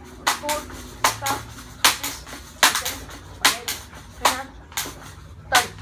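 Pump BB gun being pumped: its pump lever is worked open and shut about seven times, roughly one stroke every 0.8 s. Each stroke is a quick pair of sharp sounds as air is forced into the gun to build up pressure.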